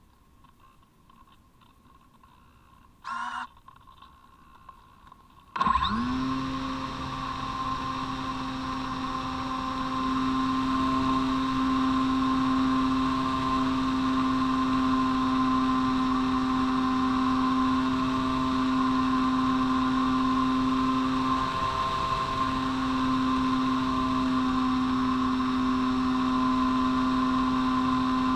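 Parkzone Radian Pro's brushless electric motor and propeller, heard from the camera on board, spinning up abruptly about six seconds in and then running steadily as a high hum for the takeoff and climb. A brief tone sounds about three seconds in, before the motor starts.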